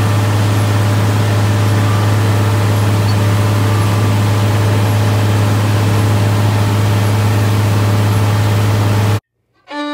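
Tractor pulling a Case IH 900 Cyclo Air planter through the field: a steady engine drone with a constant low hum and an even rushing noise over it. It cuts off abruptly about nine seconds in, and violin music begins just before the end.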